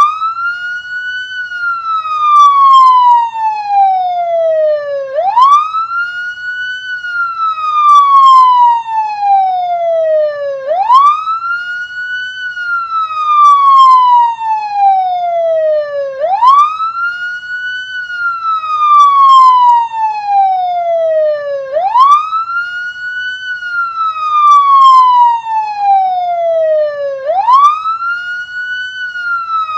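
Police car siren on a slow wail: each cycle rises quickly in pitch, then falls slowly for several seconds, repeating about every five and a half seconds, loudest near the top of each rise.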